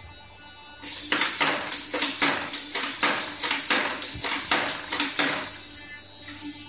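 Small servo-driven humanoid robot walking, its servo motors whirring and clicking in short spurts about four times a second with each joint movement. This starts about a second in and quiets near the end.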